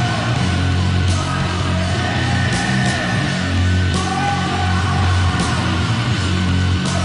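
Loud heavy rock music with guitar, playing continuously.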